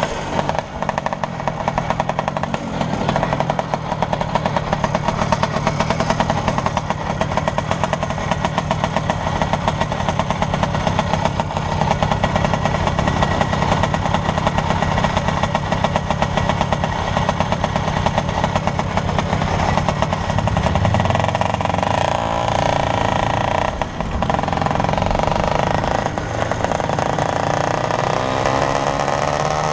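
The small two-stroke engine of a 1980 Vespa 50 Special scooter running steadily, with wind noise on the microphone. Its pitch climbs near the end as the scooter revs up and accelerates.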